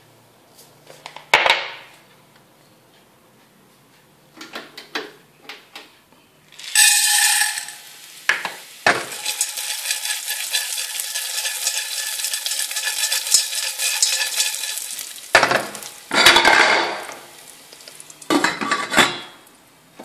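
Popcorn kernels poured into a stainless steel saucepan of hot oil, then swirled so they rattle and scrape across the metal for several seconds. A few light metal clinks come before, and loud clatters near the end as the pan is handled and its glass lid is set on.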